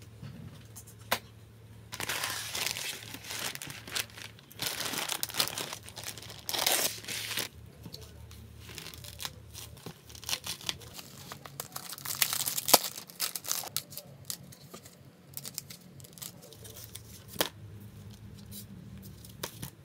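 Packaging being opened by hand with a craft knife: bursts of tearing and crinkling as tape, plastic and a cardboard mailer are cut and pulled apart, with scattered sharp clicks and one louder tap about two-thirds of the way through.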